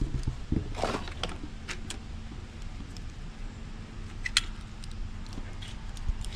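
Scattered small clicks and knocks of parts and tools being handled while a display is fitted to an electric bicycle. A faint steady hum sets in about two seconds in.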